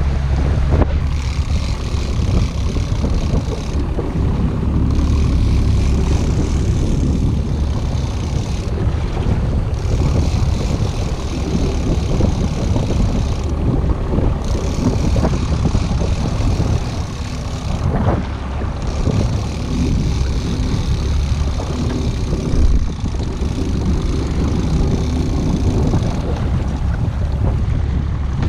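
Boat under way at trolling speed: the Evinrude E-TEC 90 hp outboard running steadily as a low drone, with wind buffeting the microphone and water rushing past the hull.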